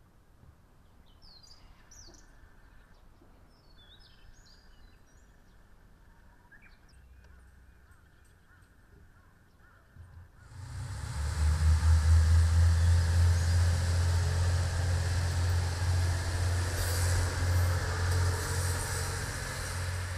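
A few bird chirps over quiet open air, then about halfway through a single-car Kiha 54 diesel railcar comes in loud and runs past, a deep steady engine drone with wheel and rail noise.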